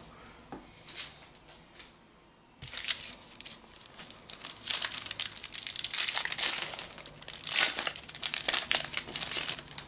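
A Panini Adrenalyn XL booster packet's wrapper being torn open and crinkled by hand. The crackling starts about two and a half seconds in and goes on for several seconds, loudest in the second half.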